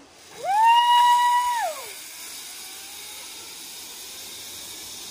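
A woman's single high scream as she launches down a zipline: it rises, holds steady for about a second and falls away. A steady hiss follows.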